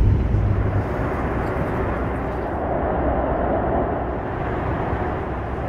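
Steady rushing and rumbling cabin noise inside a Boeing 737 MAX 9 airliner, with a low hum that drops away about a second in.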